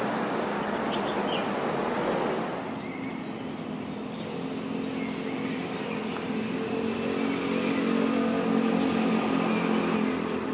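Road vehicle noise with a steady engine hum. The hum comes in about a third of the way through and grows louder for several seconds, as of a vehicle drawing near.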